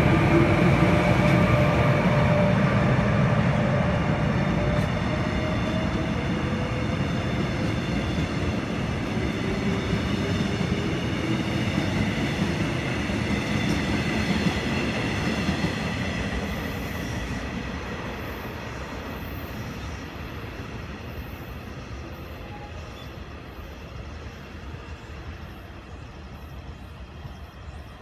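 Electric passenger train running past on the station track and pulling away, its wheel and running noise with a steady whine loudest at first and fading away.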